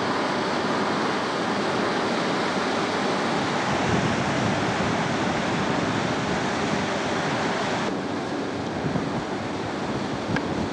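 Floodwater rushing steadily through a breach in a river levee and pouring into a flooded field, with gusty wind noise on the microphone. The sound drops slightly and dulls about eight seconds in.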